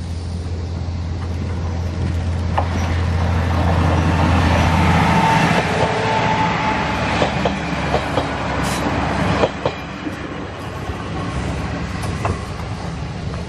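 Two-car diesel railcar train, a KiHa 40 leading a KiHa 200, passing close by. A steady low engine drone grows louder as it approaches and goes by about five seconds in, then the wheels click over the rail joints as the cars pass, and the sound drops away after about nine seconds.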